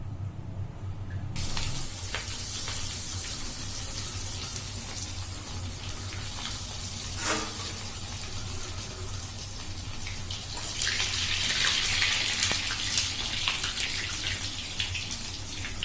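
Rice cheese balls deep-frying in hot cooking oil: a steady sizzle with fine crackling that starts abruptly, grows louder for a few seconds near the end, and has one short knock about seven seconds in.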